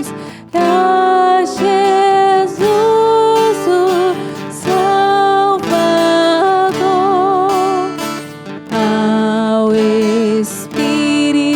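Slow devotional hymn: a voice holding long notes with vibrato over acoustic guitar.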